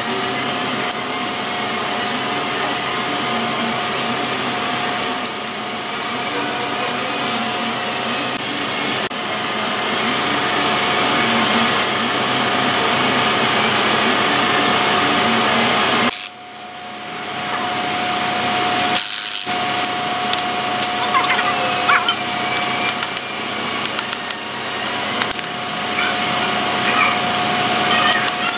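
Steady workshop machine noise with a constant whine. It drops out abruptly for a moment about 16 seconds in, and a few short metallic clicks come near the end.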